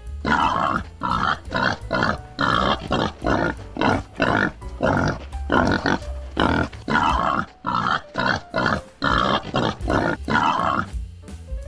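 Wild boar grunting over and over, short rough grunts about two a second, stopping near the end.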